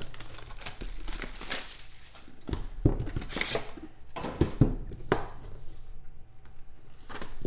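A cardboard trading-card box being handled and unpacked on a table: sliding and scraping of cardboard, with several sharp knocks as the boxes are set down and moved.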